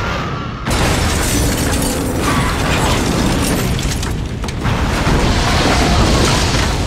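Film sound effects of a house blowing up in a gas explosion: loud, continuous blasts and rumbling with crashing, shattering debris. It surges sharply less than a second in.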